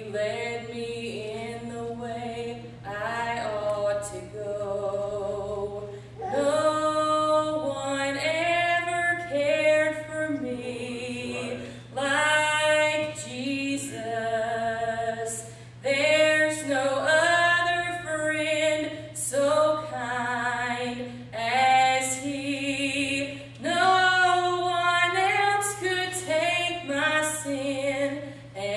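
A woman singing a gospel song solo into a microphone, with no instruments heard, in phrases of long held notes with vibrato broken by short breaths. A steady low hum sits underneath.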